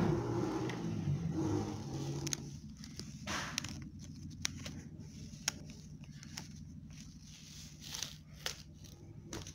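Handling noise from a phone held close while it moves over toys, paper and fabric: rustling, with scattered light clicks and scrapes over a low steady hum, busiest in the first couple of seconds.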